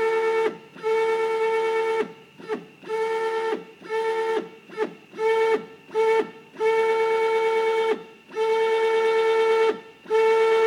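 NEMA 34 stepper motor turning an 8-inch Vertex rotary table through a quick series of about a dozen indexing moves of different lengths. Each move is a steady high whine whose pitch slides down as the motor decelerates to a stop, with short pauses between moves.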